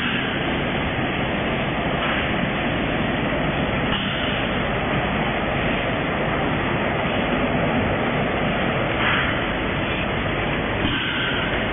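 Packing line running: the steady mechanical din of a vertical form-fill-seal powder packing machine and its checkweigher at work, with brief brighter bursts of noise a few seconds apart.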